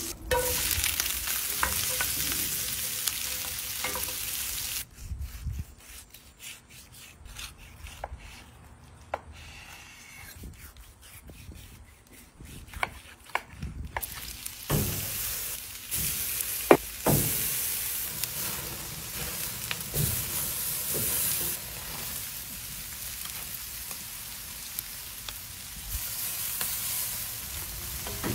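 Food sizzling and frying in a cast-iron skillet over a charcoal grill: a loud, even hiss. About five seconds in it drops to a quieter stretch of scattered clicks and taps. The sizzling returns about halfway through and continues, with a few knocks.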